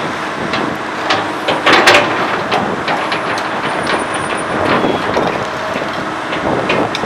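Komatsu PC200 hydraulic excavator at work: its diesel engine runs steadily under a string of sharp clanks and knocks, the loudest about two seconds in.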